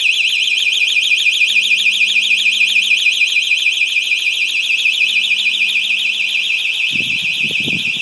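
Electronic siren of a home security alarm system sounding a fast, continuous high-pitched warble: the alarm has been tripped by its motion sensor and is in alarm. Some low muffled sounds come in under it near the end.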